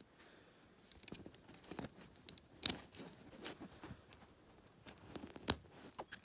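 Small plastic Lego bricks clicking and rattling as a mini Lego train model is handled and pressed together, with a series of light clicks and two sharper, louder clicks, one near the middle and one near the end.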